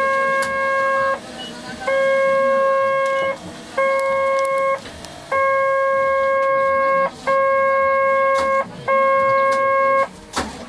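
Tram's electronic warning tone sounding in six long beeps, held for a second or more each, at uneven gaps as if pressed by hand, with a sharp knock near the end.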